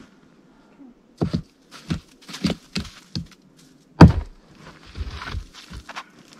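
Footsteps and handling knocks as a firewood log is picked up, then a heavy thud about four seconds in as the log lands on the pickup bed, followed by a brief scrape and a couple of lighter knocks.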